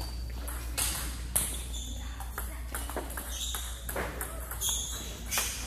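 Table tennis rally: a ping-pong ball clicking back and forth between rubber paddles and the table in quick, irregular strokes, with more ball clicks from other tables mixed in.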